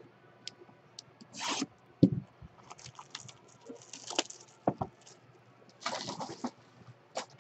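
Hands handling a trading card box and its plastic wrap: crinkling and rustling in several short bursts, with a few sharp knocks of the box against the table.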